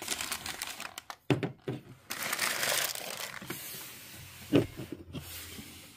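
Packing paper rustling and crinkling as wrapped items are handled and unwrapped, with a couple of light knocks of objects being set down, about a second in and again past the middle.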